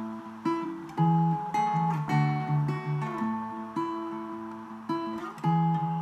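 Acoustic guitar played alone in an instrumental passage: chords ringing on, with new notes sounded every half second or so and a louder chord about a second in.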